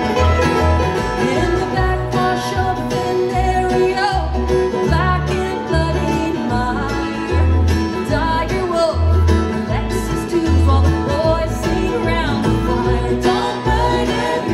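Live bluegrass band playing: strummed acoustic guitar and banjo over a low, stepping bass line, with a woman singing lead from about two seconds in.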